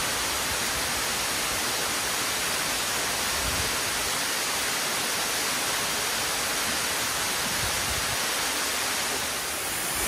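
Waterfall pouring over a rock ledge into a shallow pool: a steady, even rush of falling water, dipping slightly near the end.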